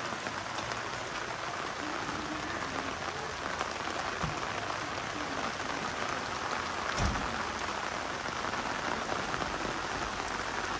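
Steady rain falling, an even hiss of drops throughout. Two short dull thumps come about four and seven seconds in, the second the loudest.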